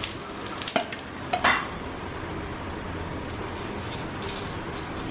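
Onion paratha frying in refined oil on a flat tawa, the oil sizzling steadily. A steel ladle knocks and scrapes against the griddle a few times about a second in, with light crackles of spitting oil later.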